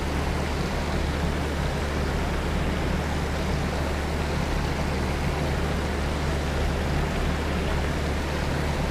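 Steady rushing noise with a low hum beneath it, even throughout, with no distinct knocks, clicks or calls.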